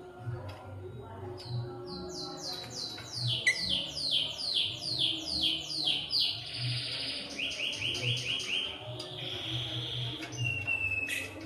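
A pet bird singing a fast run of sharp, falling chirps, about three or four a second. It then gives a buzzy trill, a shorter and quicker run of chirps, another buzzy note, and a short steady whistle near the end.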